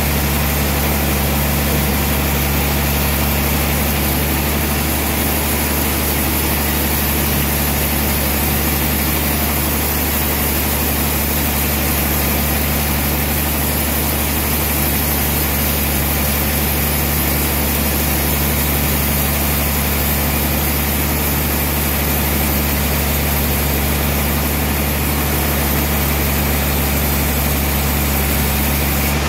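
Large sawmill band saw running steadily, a constant loud machine drone with a deep low hum.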